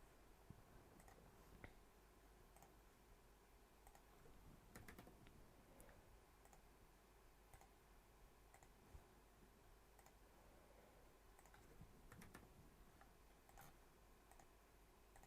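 Near silence broken by faint, irregular clicks of a computer mouse and keyboard, a few at a time.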